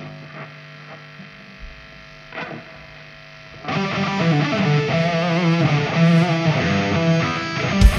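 Live rock band starting a song: amplifier hum and a few faint plucked notes, then, a little under halfway in, a loud electric guitar riff with bass kicks in. A heavy drum hit lands near the end.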